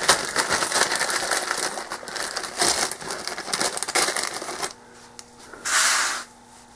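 Clear plastic parts bag crinkling and rustling as hands dig through it to pull out the hinges. The crinkling stops about four and a half seconds in, and a brief hiss follows about a second later.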